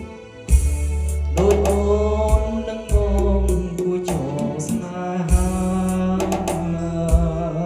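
A song with a singer, heavy deep bass and a steady percussion beat, played through a JBL EON208P PA system and JBL PRX815XLFW subwoofer as a bass demonstration. The music dips briefly right at the start, then comes back with long, deep bass notes.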